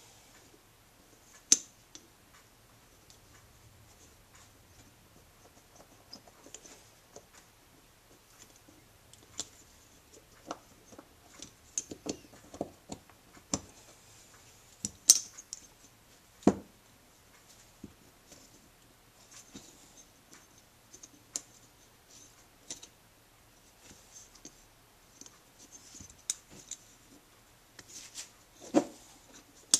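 Small metal and plastic parts of a Honda Z50A carburetor clicking, tapping and scraping as they are handled and fitted during reassembly, with the choke parts going back in. Irregular light clicks, with a few sharper ones now and then.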